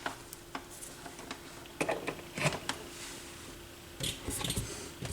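Scattered light clicks and taps of handling on a Technics SL-B202 turntable, over a faint steady hum as the freshly plugged-in turntable runs.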